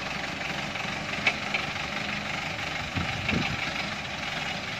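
Light truck's engine running steadily, with a brief low swell about three seconds in and a sharp click a little over a second in.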